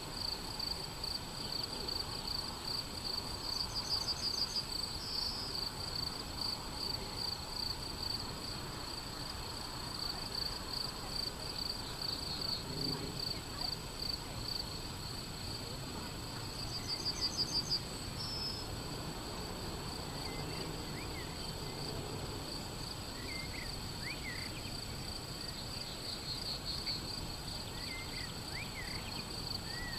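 Crickets chirping steadily in a rhythmic, pulsing high chirr, with a brief high bird trill twice and a few short bird chirps near the end.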